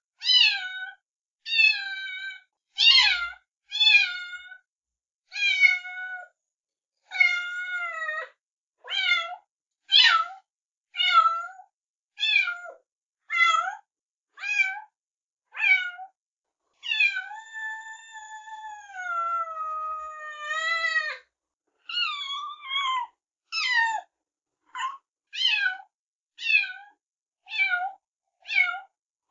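A cat meowing over and over in short calls, about one a second, with one long drawn-out meow a little past halfway that slides down in pitch.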